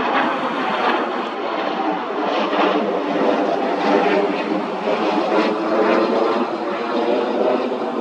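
Steady jet noise of an F-22 Raptor's twin F119 turbofan engines as the fighter passes overhead.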